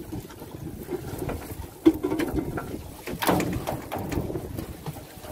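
Water lapping against a small fishing boat at sea, with a sharp knock on the boat a little under two seconds in.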